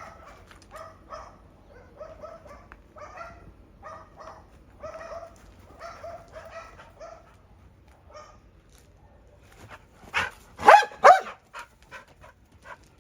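A dog whimpering in a string of short, high calls about twice a second, then giving a few loud barks with falling pitch about ten seconds in.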